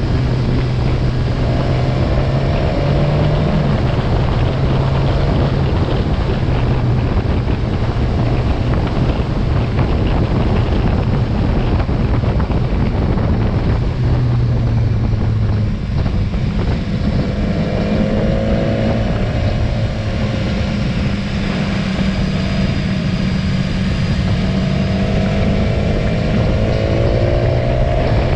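Motorcycle engine running at cruising speed, heard from on the bike, with wind buffeting the microphone. The engine note steps up and down a few times as the speed changes.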